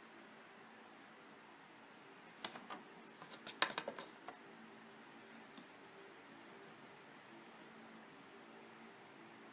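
A few sharp clacks and knocks as a wooden ruler and pencil are handled against the drawing board. Then a Prismacolor colored pencil scratches across sanded UArt paper in rapid short strokes. A faint steady hum sits underneath.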